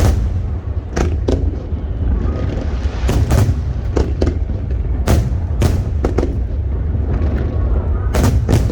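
Aerial fireworks shells bursting in an irregular series of sharp bangs, about a dozen, some in quick pairs, over a steady low rumble.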